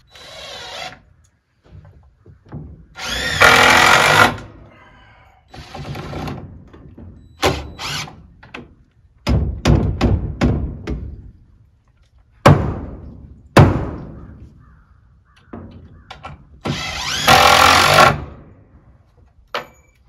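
Cordless drill driving screws into the wooden coop framing, in a series of short whirring runs, the longest and loudest about three seconds in and again near the end. A few sharp knocks come about two-thirds of the way through.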